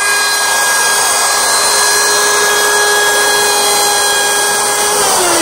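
Handheld electric wood router running at full speed with a steady high whine as its bit trims the edge of a plywood panel. Near the end, its pitch sinks steadily.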